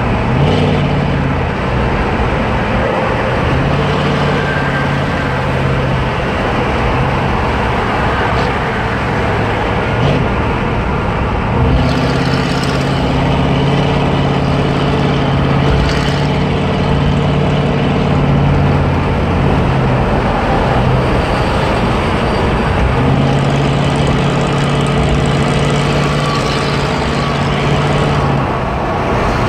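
Straight-piped 6.2-litre Detroit Diesel V8 running under way in an Isuzu Trooper. It gives a loud, steady drone whose low note strengthens for stretches of several seconds at a time, twice in the second half.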